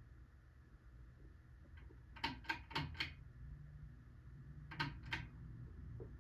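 Litex Starlite ceiling fan motor humming steadily. Four quick sharp clicks come about two seconds in, and two more about five seconds in.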